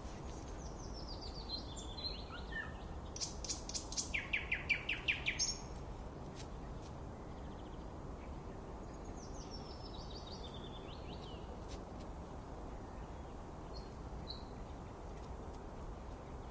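Songbirds singing over a steady low background hum: a descending run of high notes, then a loud, rapid string of about eight notes a few seconds in, and another descending phrase past the middle, with a few short chirps later.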